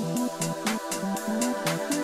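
Electronic intro music with a steady beat and a stepping synth bass line.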